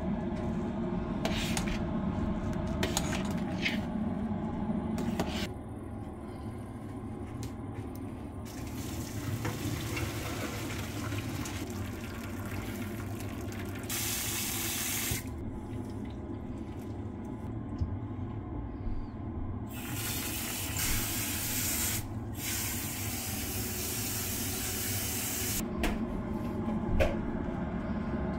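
Kitchen tap water running into a stainless-steel pot of cooked rice in the sink as the rice is rinsed. The water comes on in spells, loudest in the second half. Before that, a few light knocks of a metal spoon against the pot, over a steady low hum.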